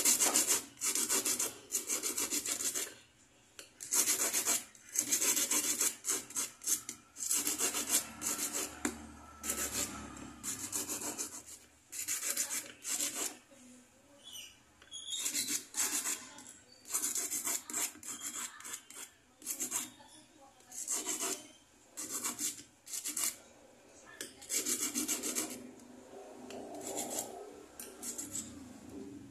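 Small hand file rasping on the end of a metal bangle, in runs of quick back-and-forth strokes broken by short pauses.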